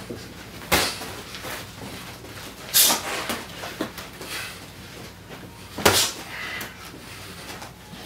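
Boxing gloves landing punches in heavyweight sparring: three loud sharp hits, about a second in, near three seconds and near six seconds, with a few lighter taps between.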